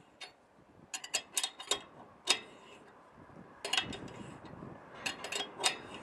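Irregular metallic clicks and knocks from a microwave dish antenna's mount as its vertical (elevation) alignment is adjusted by hand, a few clicks a second in short clusters.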